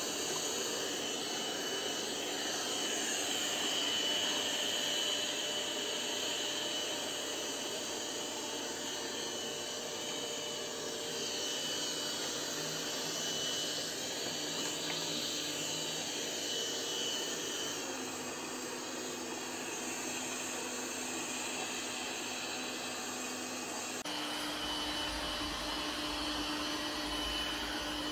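BPMIO B10 Plus robot vacuum running, a steady motor whine over suction noise. Near the end the sound changes abruptly, a lower steady hum and a low rumble taking over.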